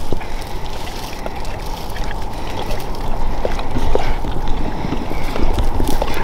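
Wind buffeting the microphone, with dogs' paws scuffing and rustling through dry leaves and grass in scattered short crackles.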